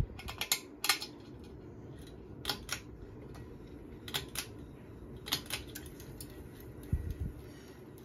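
Hampton Bay Genoa ceiling fan running with a steady low sound. Sharp metallic clicks, mostly in quick pairs every second or so, come from the light kit's switch housing and glass globe being handled, and two low thumps come near the end.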